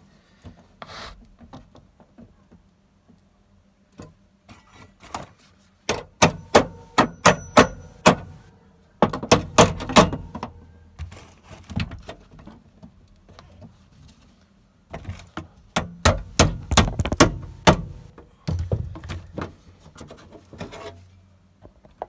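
A steel repair panel being knocked and pressed into place against a classic Mini's cross member during a test fit: quick runs of sharp metal taps and clanks, several a second, in four bursts.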